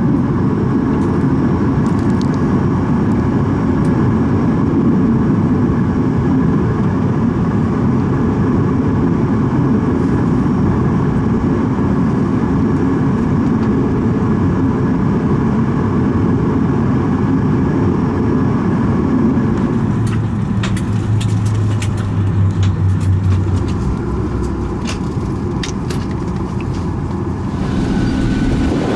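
Steady cabin rumble inside a Boeing 737 MAX 8 taxiing at low engine power. In the later part the rumble's low end drops away, a low hum comes in briefly, and scattered small clicks are heard.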